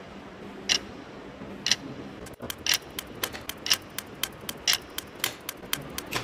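Clock ticking, about one sharp tick a second; from about two seconds in, fainter tocks fall between the ticks, doubling the rhythm.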